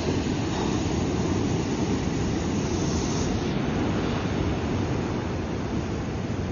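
Ocean surf washing onto the shore, a continuous rushing noise with a brief brighter hiss about halfway through.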